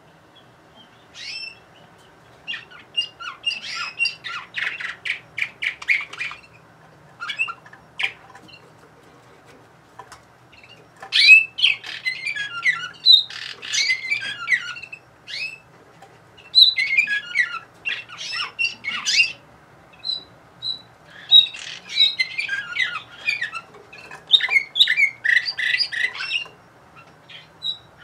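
Domestic canary singing in phrases: fast trills of evenly repeated notes alternating with varied warbling, with short breaks between phrases.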